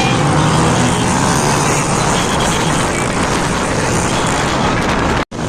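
Dirt bike engine running during a ride, mixed with a dense rushing noise of wind on the microphone. The sound cuts out for an instant near the end.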